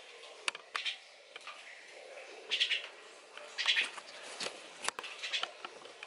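Starling chick giving about four short, harsh chirps, with a few sharp clicks in between.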